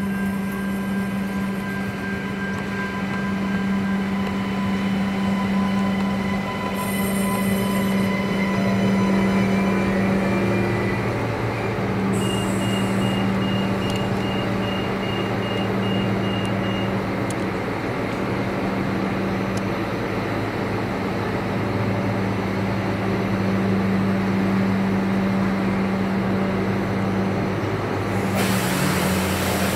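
3000 class diesel railcar drawing into the platform and standing with its engine running, a steady low drone. About twelve seconds in comes a run of short beeps, about two a second, for a few seconds. Near the end a sudden loud hiss breaks in.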